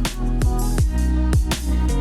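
Electronic background music with a heavy bass and a steady kick-drum beat.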